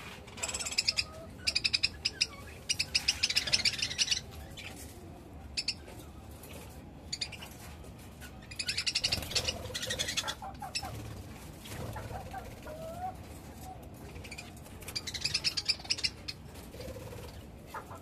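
A flock of budgerigars chattering, in repeated bursts of rapid, grating chirps.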